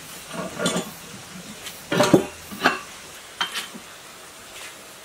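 Metal clinks and knocks as the runner of a small water turbine is handled inside its cast housing: a handful of irregular hits, the loudest about two seconds in.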